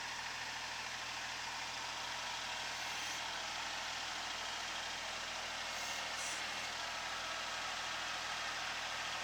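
Kubota SL28H tractor's diesel engine running steadily, heard with an even hiss.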